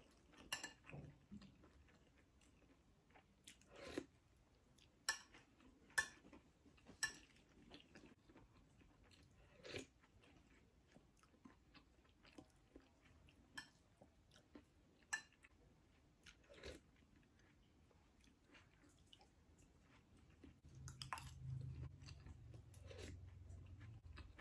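A person eating quietly with a metal spoon: soft chewing and mouth sounds with scattered sharp clicks of the spoon against the bowl. A faint low hum comes in near the end.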